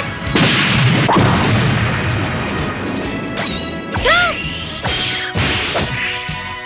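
Cartoon action sound effects of crashing and banging over background music, with a short shrill cry that rises and falls about four seconds in.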